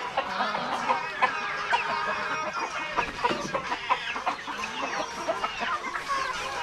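A flock of Rhode Island Red chickens clucking, many short calls overlapping continuously.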